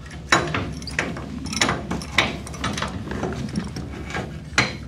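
Steel C-clamp being worked on aluminium plating: a handful of sharp metal knocks and clanks at irregular intervals, with the scrape and rattle of the clamp screw between them.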